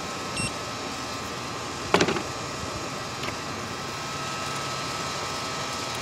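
Steady background hum with the cordless angle grinder stopped, its battery run flat. A short faint electronic beep from a digital timer's button comes about half a second in, and a single knock about two seconds in.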